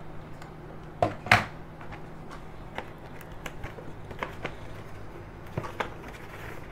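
Light knocks and clicks of a hard plastic toy car being set down on a table and handled. Two sharper knocks come close together about a second in, with small scattered clicks over faint room tone after them.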